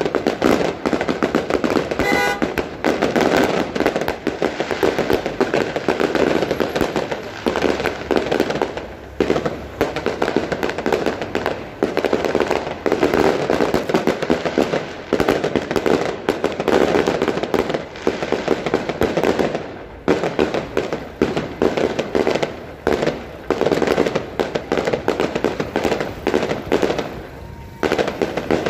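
Daytime fireworks barrage: a long, dense string of sharp bangs and crackles in quick succession, coming in waves with a few brief lulls.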